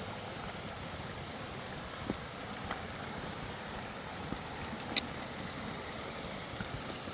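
Steady rush of a flowing mountain creek, with a few scattered sharp clicks, the loudest about five seconds in.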